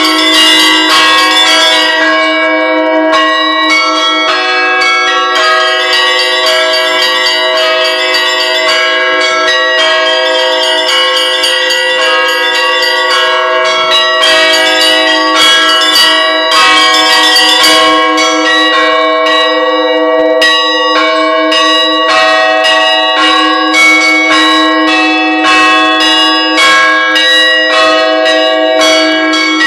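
Bells ringing continuously, struck many times in quick succession so that their tones overlap and keep sounding without a break.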